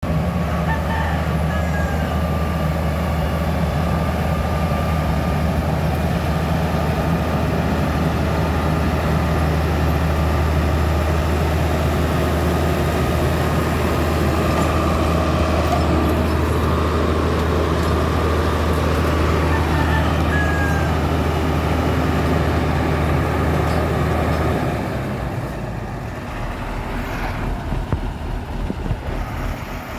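Diesel engine of heavy construction equipment running steadily under load with a deep hum, dropping to a lower, rougher rumble about 25 seconds in. A couple of brief high squeaks cut through it.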